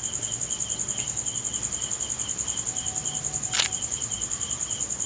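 Crickets chirping in a steady, fast-pulsing high trill, with a single sharp click about three and a half seconds in.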